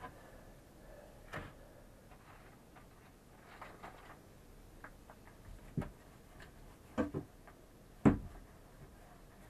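Light, scattered knocks and taps from painting a fiberglass bilge with a small foam roller and its tray being handled, about seven in all at irregular intervals, the loudest near the end.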